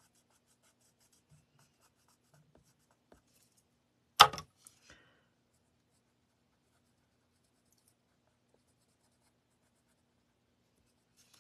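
Faint scratching of a coloured pencil on card stock. About four seconds in there is one sharp clack with two small taps just after, as a pencil is set down on the table.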